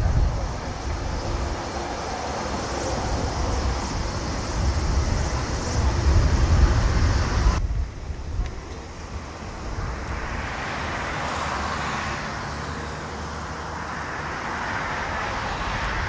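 Boeing 737 jet engines rumbling on the runway, with strong wind buffeting the microphone. About halfway through it cuts to a Boeing 777 on approach, whose jet engine noise swells as the aircraft draws nearer.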